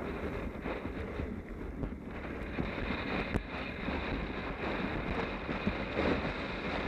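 Wind rushing and buffeting across a helmet-mounted camera's microphone while riding along a rough dirt track, with a low rumble and a few scattered knocks from bumps.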